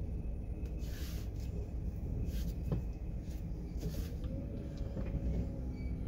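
Low steady rumble inside a car's cabin while it sits in slow traffic, with a few short clicks and rustles about one, two and a half and four seconds in.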